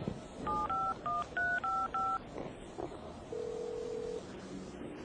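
Mobile phone keypad tones as a number is dialled: six short dual-tone beeps in quick succession, followed about a second later by one steady lower tone lasting just under a second.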